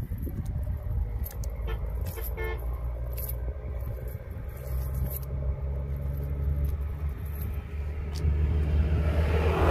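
Motor vehicle engine running steadily nearby, growing louder near the end, with a short horn toot about two and a half seconds in.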